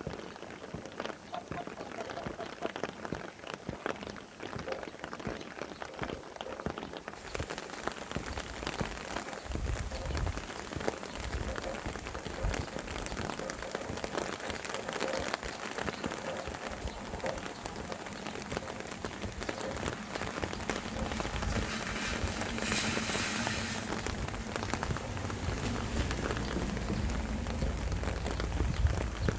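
Rain falling steadily and pattering on surfaces, with wind gusts rumbling low that build up from about nine seconds in.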